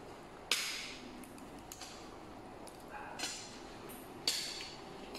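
A person eating steamed shellfish with her hands up close: three short, sharp bursts of eating noise, about half a second in, past three seconds and past four seconds, each dying away within half a second, with a few faint ticks between.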